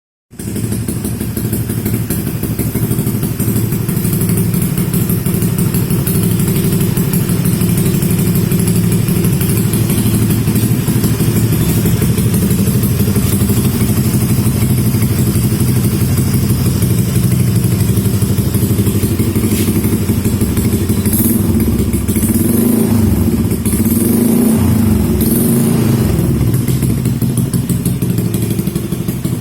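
Honda Vario 150 scooter's single-cylinder engine running steadily through an aftermarket CHA Purbalingga exhaust, with an even pulsing exhaust note. The note shifts for a few seconds about three-quarters of the way through.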